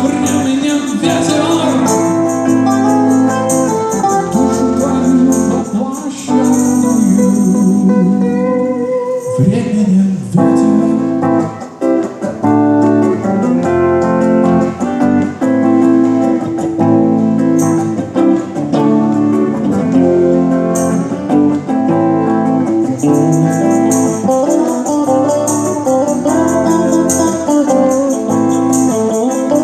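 Live band playing an instrumental passage of a bard-rock song, with guitars carrying the melody; the sound thins out briefly about eight seconds in, then the full band comes back.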